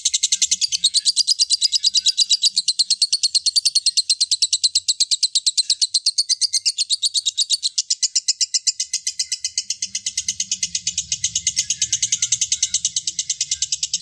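Lovebird chattering in one long unbroken run of rapid, even chirps, about nine a second, held at a steady pace without a pause.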